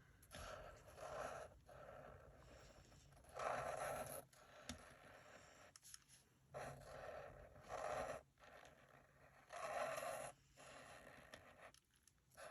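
Nuvo glitter marker tip scraping across paper in a series of short scratchy strokes, several seconds apart, as a word is hand-lettered.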